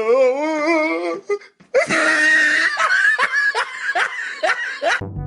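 Laughter: a wavering, high-pitched laugh for about a second, then after a brief pause a longer burst of laughing in quick pulses. Brass music comes in just before the end.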